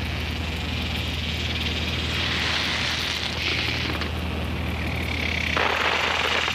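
A steady high chorus of insects chirring, over a low steady hum. A broad rushing noise swells up near the end.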